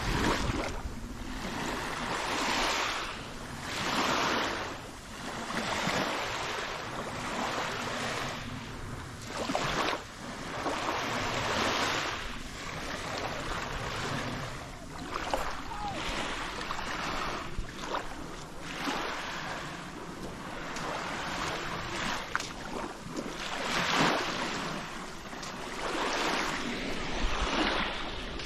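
Small waves washing up on a sandy beach, the hiss of the water swelling and fading again and again, with some wind on the microphone.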